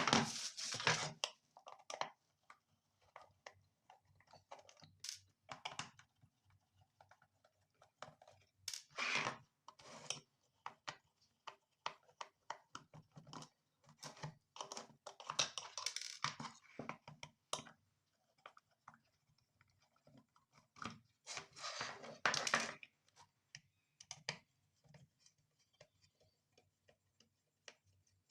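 Scattered light clicks, taps and scraping as small objects are handled, with a few longer rustling patches and quiet gaps between.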